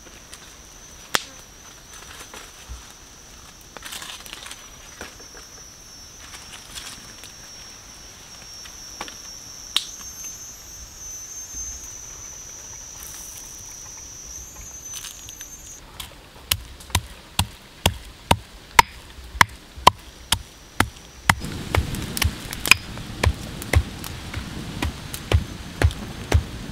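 A steady high insect trill that stops about 16 s in, then a run of sharp clicks about two a second. Near the end, the low rush and crackle of a wood fire burning strongly joins them.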